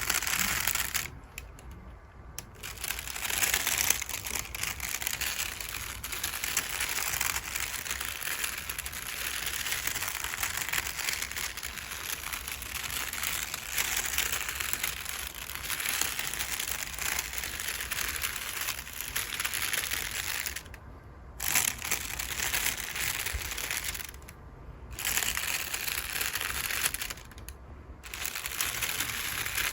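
Makeup brush bristles brushed back and forth over crinkle paper: a continuous papery rustling crinkle that stops briefly four times.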